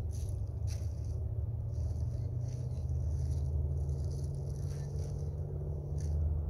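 Paint brush strokes on a stretched canvas: a series of short, scratchy scrapes, over a steady low rumble.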